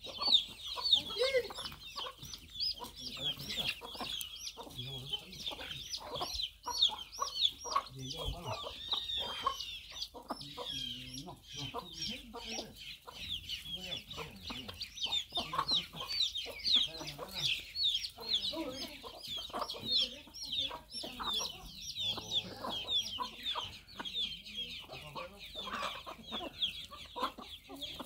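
A flock of hens and chicks feeding: a constant chorus of many chicks peeping high and fast, over the hens' lower clucking.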